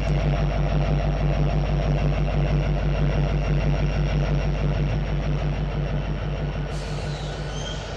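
Norfolk Southern EMD SD70ACe diesel locomotive idling with a steady, throbbing low drone. A hiss comes in suddenly near the end.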